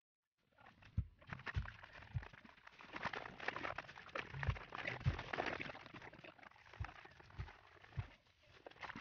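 Water splashing and sloshing in a plastic basin as plastic scooter body panels are scrubbed with a brush, with irregular dull knocks of the panels against the tub. The sound starts about half a second in.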